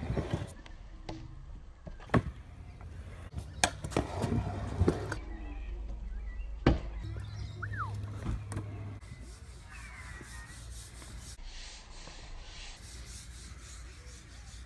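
Stunt scooter wheels rolling on concrete ramps, with a string of sharp clacks from the deck and wheels landing and striking the surface, over a steady low rumble.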